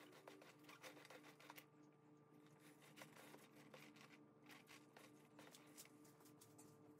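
Faint, irregular scraping and soft clicks of a metal spatula spreading and smoothing frosting over a cake layer, over a faint steady hum.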